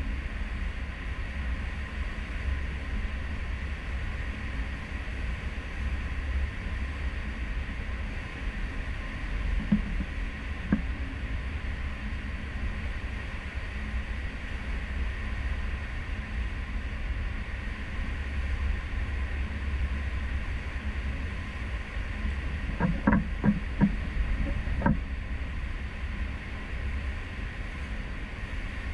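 The cruise ship Serenade of the Seas under way at sea, heard from its aft balcony: a steady low rumble with a hiss over it. A few short knocks come about ten seconds in, and a cluster of them about twenty-three seconds in.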